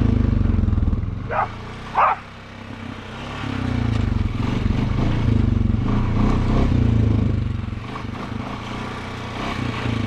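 Honda Foreman 500 ATV's single-cylinder engine running on the trail, easing off about a second in and picking up again around three and a half seconds. Two short dog barks come about a second and a half and two seconds in.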